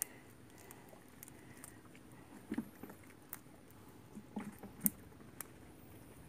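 Hands pulling and picking at a wet nylon gill net: a scattering of faint clicks and rustles, the sharpest about five seconds in.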